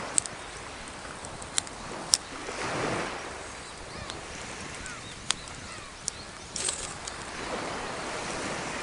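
Wood fire crackling in a small portable fire pit, with about half a dozen sharp pops, over waves washing onto the shore in slow swells.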